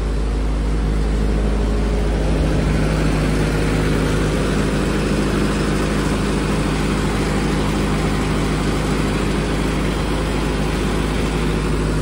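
Diesel engine of a Doosan 30 kVA generator set running steadily under load from a load bank, with a constant low engine drone and hum.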